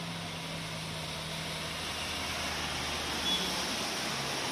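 Tata bus engine running as the bus drives through floodwater, a steady low hum with a hiss of churned water that grows louder as it passes close. A brief high chirp sounds about three seconds in.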